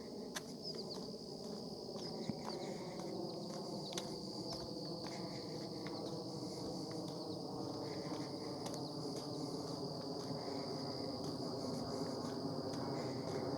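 Steady high-pitched chorus of crickets, with a low droning hum underneath that grows a little louder, and a few scattered clicks.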